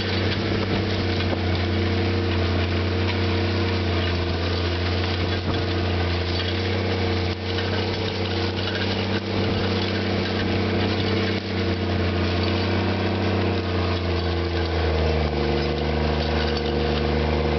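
Case IH MX240 tractor's six-cylinder diesel engine running steadily under load while pulling a disk ripper through corn stalks, over a constant rushing noise. The engine note changes about fifteen seconds in.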